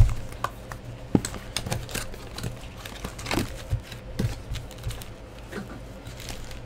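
Cardboard hobby box and a foil-wrapped card pack being handled: irregular light clicks and crinkles.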